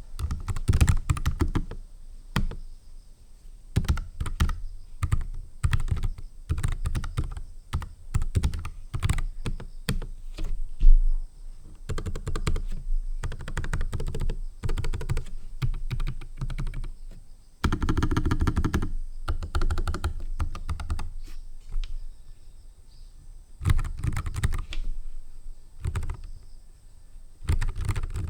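Typing on a NuPhy Air 75 low-profile mechanical keyboard with tactile Gateron Brown switches: fast runs of key clacks in bursts, broken by short pauses.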